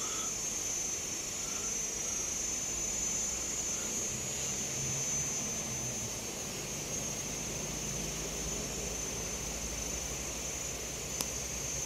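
Steady high-pitched insect buzz, with a low rumble that swells from about three seconds in and eases toward the end, and one faint click near the end.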